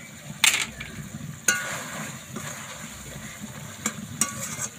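Chicken curry in a metal kadai being stirred with a spatula over the bubbling of the simmering cashew gravy, with a few sharp scrapes and knocks of the spatula on the pan, the loudest about half a second in.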